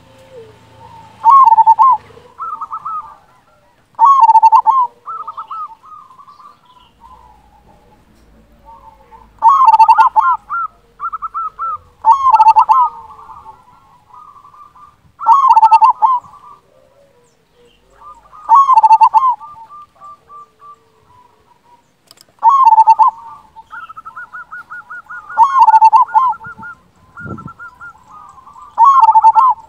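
Zebra dove (perkutut) singing its cooing song: a loud rolling coo phrase about every three seconds, with softer, rapid strings of short coo notes in between.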